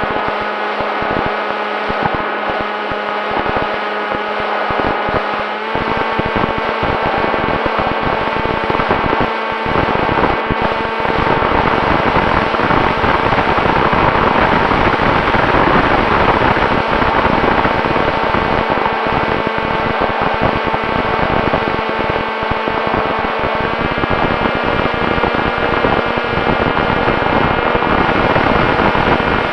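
Electric motor and propeller of an FX-61 flying-wing model aircraft running at steady throttle as a constant whine, stepping up in pitch about six seconds in and dropping back near the end, under heavy wind rush and buffeting on the onboard microphone.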